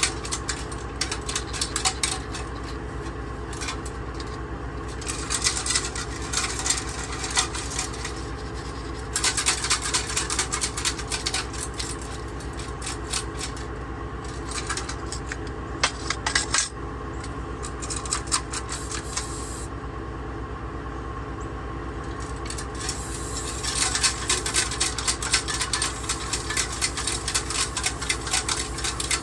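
Rocks rattling and clattering inside a metal gas tank as it is shaken by hand in bouts, scouring rust and debris from the tank's inside. A steady low hum runs underneath.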